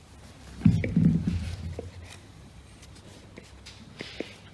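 Handling noises as the plastic parts of a heater blower fan motor are fitted together: a dull knock under a second in, then a few light clicks.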